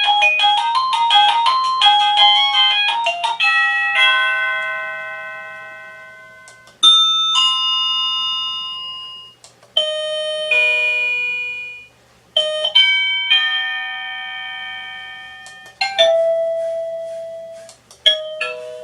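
Wireless doorbell chime unit playing through its built-in tunes one after another. A quick electronic melody gives way to a series of bell-like chime tunes whose notes ring and fade. A new tune starts abruptly every two to four seconds and cuts off the last.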